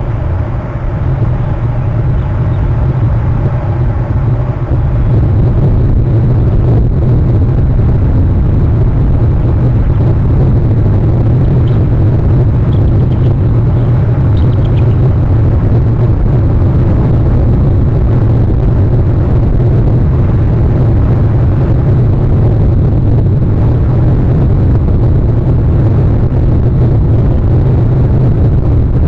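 Steady low rumbling noise with a fainter hiss above it, growing louder over the first few seconds and then holding level.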